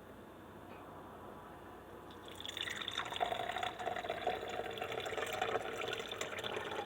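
Water being poured into the rear water reservoir of a single-serve coffee maker, starting about two seconds in and running steadily as the reservoir fills.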